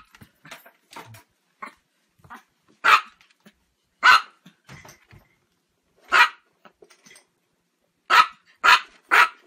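Chihuahua barking in short, sharp barks: single barks a second or two apart, then three in quick succession near the end, with a few fainter yips between.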